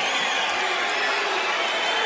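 Football stadium crowd of Manchester United supporters, a steady dense mass of voices singing and cheering together.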